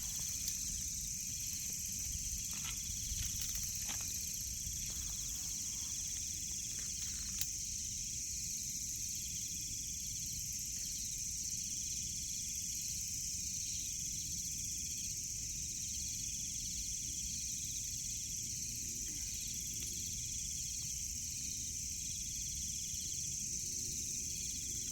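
Insects chirring in a steady high drone, with a second, lower chirp that repeats in short phrases every second or two over a low background hiss. A few faint clicks come in the first few seconds.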